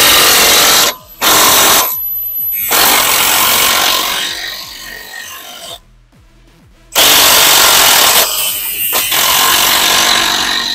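Small angle grinder with a thin cut-off disc cutting metal, running in bursts: a short stop about a second in, a pause of about a second near six seconds, then running hard again.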